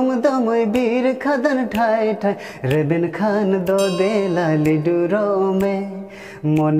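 A man singing a slow song in Santali with long held notes that waver and slide between pitches, over light accompaniment. There is a brief drop in loudness about six seconds in.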